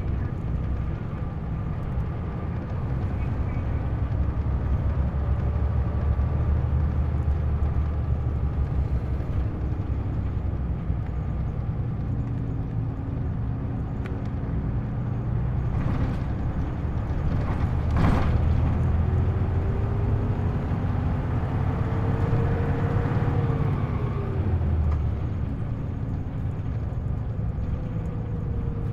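Isuzu U-LV324K city bus engine running hard at high revs, recorded aboard. The engine note climbs steadily, falls away sharply about 23 seconds in, then climbs again near the end, with a sharp click about 18 seconds in.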